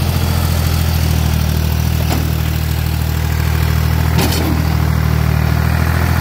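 Ford 3000 tractor's three-cylinder engine running steadily while its front loader works snow, with one brief clank about four seconds in.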